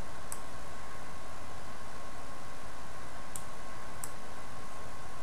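Three sharp computer-mouse clicks, one shortly after the start and two close together past the middle, over a steady recording hiss with a faint steady whine.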